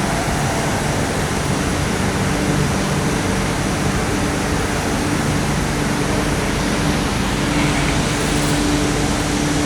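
MTR Kwun Tong line Q-Train running between stations: a steady rushing and rumbling running noise with a faint, steady low hum from the drive.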